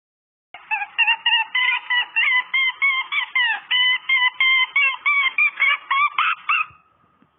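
Chicken calling in a rapid, loud run of short pitched clucks, about four a second, for some six seconds before stopping near the end.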